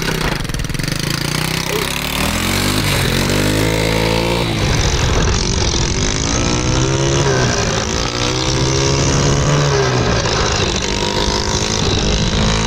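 A 125cc Lifan clone single-cylinder four-stroke engine in a Honda Z50R mini bike being ridden. It revs up and backs off about four times, the pitch climbing and falling each time.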